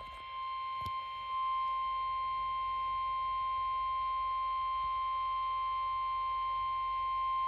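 Emergency alert attention tone: a single steady pitch near 1 kHz held without a break, the NOAA Weather Radio warning alarm tone that comes before a broadcast severe thunderstorm warning. There is a brief click about a second in.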